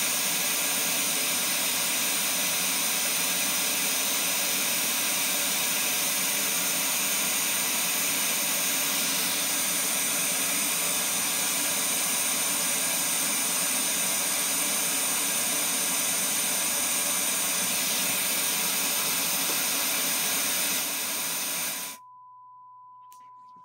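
Steady broadband test noise, an even hiss spread from low to high pitches, played through a loudspeaker into the room. Near the end it cuts off suddenly, leaving only a faint steady high tone.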